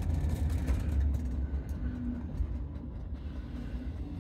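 Low rumble of a narrow-gauge electric train's wheels on the rails, heard from inside the passenger car as it pulls slowly into a station, the rumble easing as it slows.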